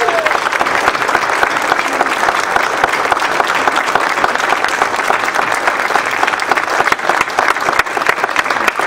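A congregation applauding steadily, a dense crowd of handclaps, with the tail end of a shouted cheer in the first moment.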